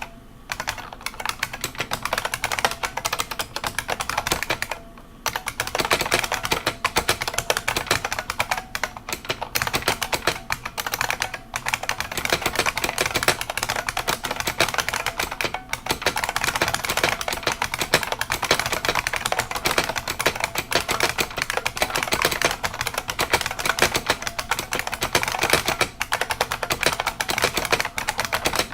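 IBM Model M buckling-spring keyboard being typed on fast and continuously, a dense stream of sharp clacking keystrokes, with a short pause about five seconds in.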